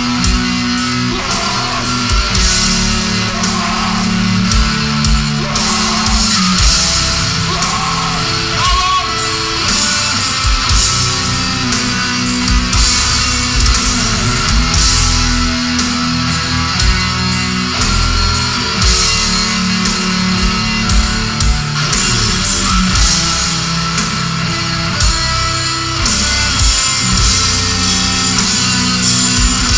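Live death metal band playing at full volume: heavily distorted electric guitars and bass grinding out low riffs over a pounding drum kit with constant cymbal crashes, and harsh shouted vocals over the top.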